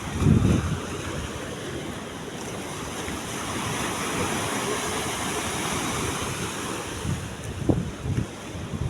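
Sea waves washing steadily, with wind gusting across the microphone, loudest just at the start and again near the end.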